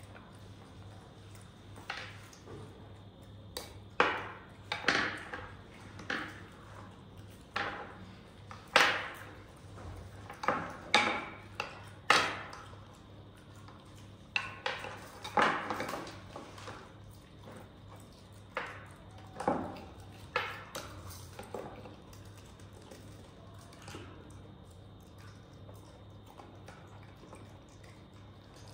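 Irregular clinks and knocks of utensils against dishes, scattered singly and in quick runs, some ringing briefly, over a faint low steady hum.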